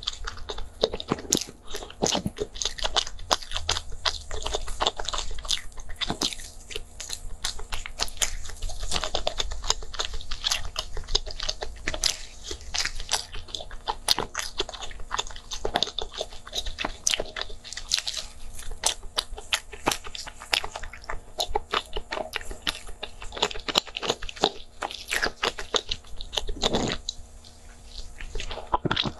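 Close-miked eating of a soft layered cake sandwich with a dark filling: bites, chewing and wet mouth sounds with many small crunchy clicks. Near the end the chewing eases off for a drink from a glass of milk.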